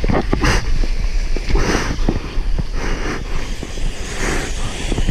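Sea water splashing and washing right at the camera, in surges a little over a second apart, with wind buffeting the microphone.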